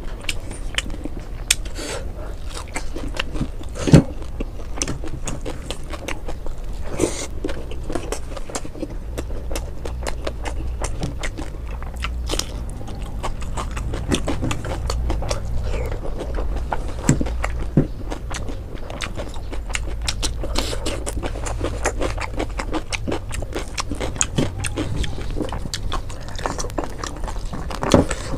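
Close-miked eating sounds: wet chewing, mouth smacks and crunches of fried fish and rice eaten by hand, with fingers working rice on a steel plate. Many small clicks throughout, and one sharper, louder click a few seconds in.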